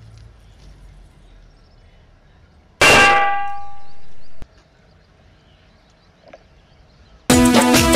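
A single loud metallic bell clang about three seconds in, ringing with several tones for about a second and a half before it cuts off abruptly. Near the end, loud music with a drum beat starts.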